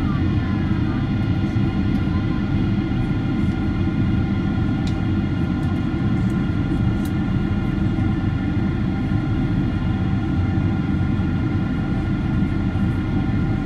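Steady cabin noise inside a Boeing 767-300 on final approach: a low rumble of airflow and engines with several steady whining tones above it.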